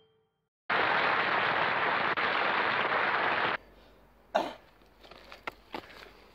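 A loud burst of steady hiss-like noise that starts suddenly and cuts off abruptly after about three seconds. It is followed by faint background with a few sharp knocks.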